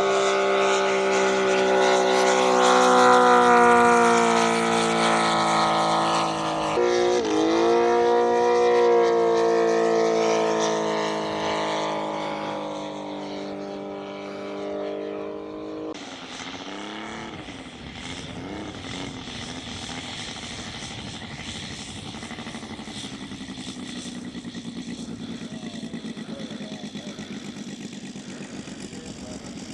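Radio-controlled model airplane engine droning in flight, with a brief dip and rise in pitch about seven seconds in, then fading. It cuts off suddenly about halfway through, replaced by a quieter, steadier engine sound.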